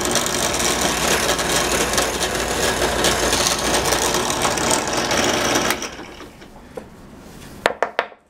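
Benchtop drill press running, its bit boring a hole through a wooden board. The noise drops away about six seconds in, and a few sharp knocks follow near the end.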